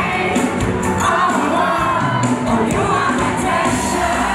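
Live pop song: male voices singing over a band with drums and electric guitar, with the audience cheering.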